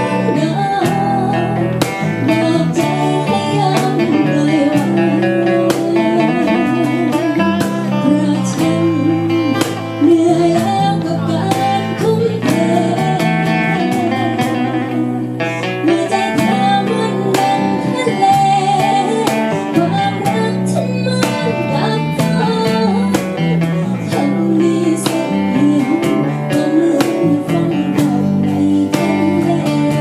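Live acoustic band: a woman singing with vibrato over strummed acoustic guitars, with a cajón keeping the beat.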